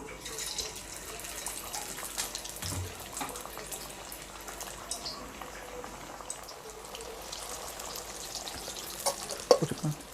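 Small potato-cauliflower masala vadas frying in hot oil in a kadai, with a steady crackling sizzle as the batter goes in. A short louder sound comes near the end.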